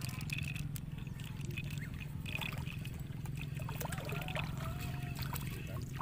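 A hooked tilapia splashing and thrashing at the surface of a pond: a run of quick, irregular splashes that is busiest in the middle of the stretch.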